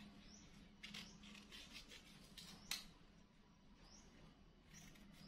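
Near silence: a few faint, scattered clicks and taps, the strongest a little under three seconds in, over a low steady hum.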